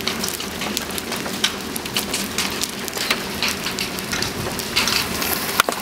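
Small hail and rain striking a car's roof and windows, heard from inside the car: a dense stream of irregular sharp ticks over a steady hiss.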